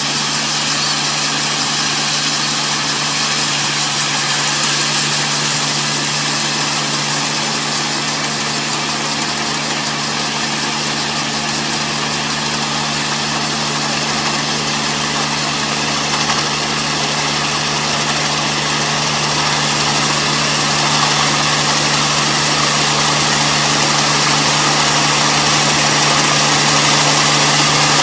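Engine of farm machinery running steadily: a constant drone that grows slightly louder over the second half.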